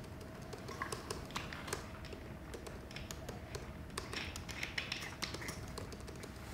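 Scattered light taps and clicks, with brief crackling in between, from small objects being handled at a table, over a faint steady hum.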